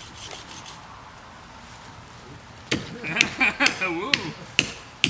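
Wood being chopped by hand: after a quiet start, a quick run of about six sharp chops, roughly two a second, beginning near three seconds in.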